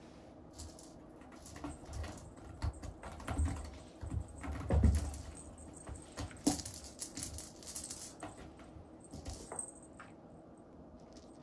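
A cat playing at a sisal scratching post: scattered light taps, scuffs and scratches of paws on the post and its base, with a heavier thump about five seconds in and a sharp click a moment later.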